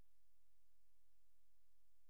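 Near silence: a steady faint noise floor, with no distinct sound.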